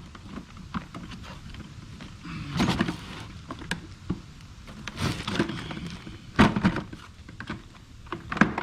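Pressure washer parts knocking and clunking together as the handle is fitted onto the body, with a few separate clunks about 2.5, 5, 6.5 and 8.5 seconds in.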